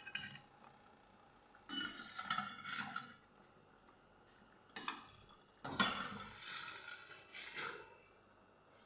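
Kitchen pot-and-utensil clatter: metal clinking and scraping against a cooking pot in several short bursts, some leaving a brief ringing tone.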